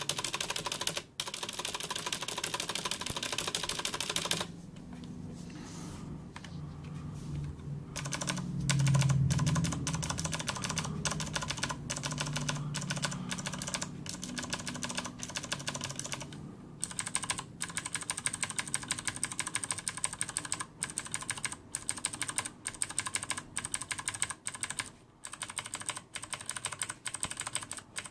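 Corsair K70 mechanical keyboard with Cherry MX Blue clicky switches and no O-rings, typed on fast: a dense stream of sharp keystroke clicks, each key bottoming out unsoftened.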